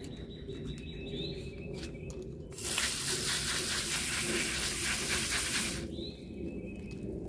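Garden hose spray nozzle showering water onto romaine lettuce leaves soaking in a plastic tub: a steady hiss of spray with water splashing into the water, starting about two and a half seconds in and stopping about three seconds later.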